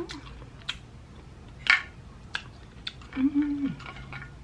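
Eating sounds from a mukbang: a few sharp clicks and smacks, one louder than the rest. About three seconds in, a short hummed "mm" drops in pitch at its end.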